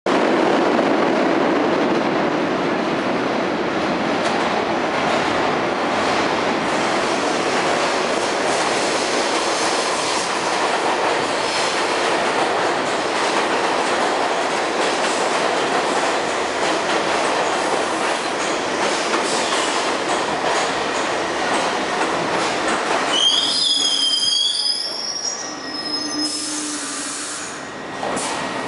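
A 1980s Bombardier R-62A subway train running into a station, its wheels and running gear giving a loud, steady rail rumble. About 23 seconds in, high-pitched squeals that glide up and down in pitch sound for a few seconds as it slows to a stop, then a low steady hum as it stands.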